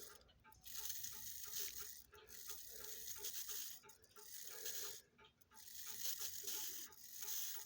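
Regula 20 cuckoo clock movement clicking faintly and evenly, about three small clicks a second, as its strike rack is gathered one tooth at a time.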